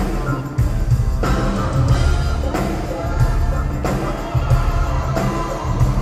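Live pop-rock band playing at full volume, with heavy drums and bass under a sung lead vocal.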